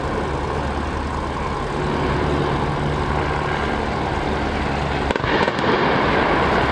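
A 70-ton steam locomotive driven off the end of a bridge and falling into a quarry: a steady noisy rumble, then about five seconds in a louder crash and splash as it hits the water-filled pit at the bottom.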